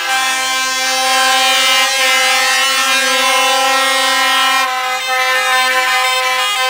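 Truck air horns blowing long, sustained blasts, several tones sounding at once as a chord that shifts to a different set of tones a little under five seconds in.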